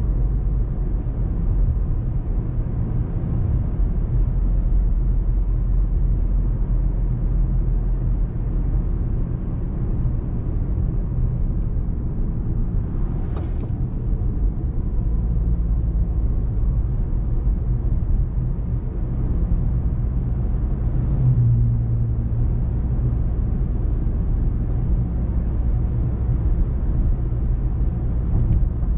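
Steady low rumble of a car being driven, engine and tyre noise on the road, with a brief click about halfway through.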